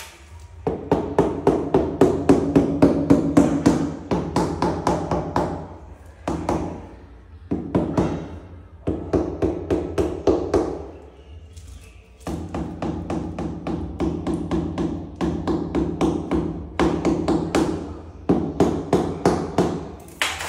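Rapid tapping on tiles during tile laying, in runs of a few seconds with short pauses, about four or five taps a second, each tap with a short ringing tone. A steady low hum runs underneath.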